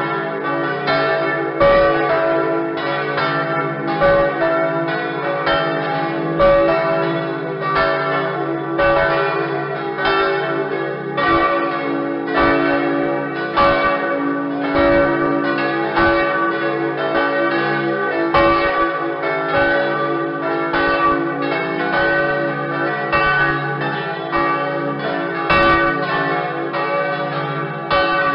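A set of church bells ringing a continuous peal: strike follows strike in quick succession, and each bell's tone rings on into the next.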